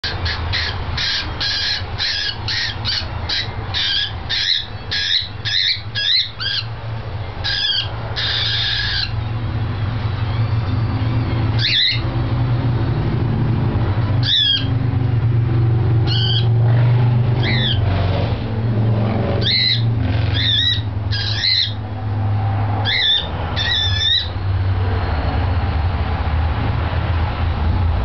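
Cockatiel screeching and calling, like a little banshee. At first it gives a quick run of short calls, about two or three a second, then after a few seconds single calls every second or two. A steady low hum runs underneath from about a third of the way in.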